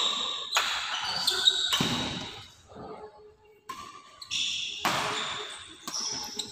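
Badminton shuttlecock struck back and forth by rackets, each hit a sharp crack echoing around a large indoor hall. There are about six hits, with short high squeaks after some of them, and a brief lull between points in the middle.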